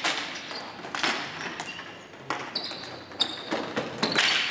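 Ball hockey play: irregular sharp knocks of sticks and the ball, several in quick succession, with short high squeaks in between.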